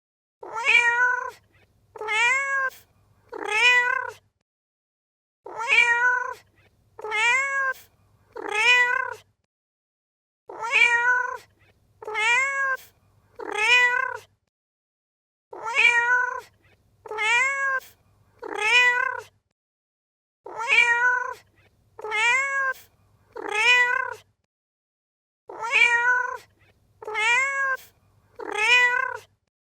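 Domestic cat meowing, calls that rise then fall in pitch, in sets of three about every five seconds, repeating evenly like a loop.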